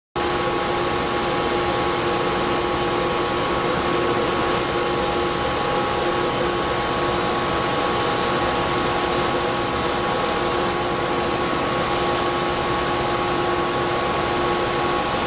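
Grain dryer running: a steady, loud fan roar with several steady humming tones through it.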